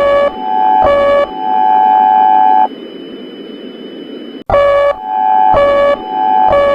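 Emergency alert system alarm: a steady electronic multi-tone note alternating with short, lower-pitched beeps, over a constant static hiss. About two and a half seconds in the tones stop, leaving only the hiss for nearly two seconds, then they cut back in abruptly with a click and resume the same alternating pattern.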